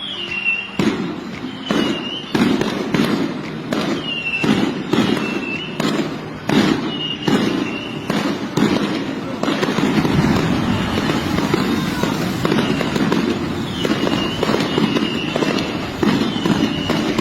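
A rapid, irregular series of loud bangs and cracks, denser in the first half, over a steady rumbling noise. A short dipping chirp repeats about once a second.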